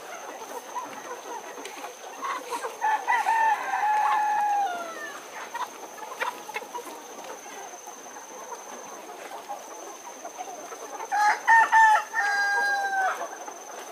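A rooster crowing twice, a few seconds in and again near the end. Each crow is a few short notes leading into one long held note that drops away at the end. A thin steady high whine runs underneath.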